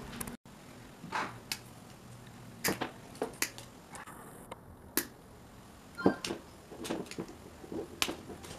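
Irregular sharp clicks and snips of hand pliers cutting and stripping the old lead wires of an electric fan motor, about a dozen in all.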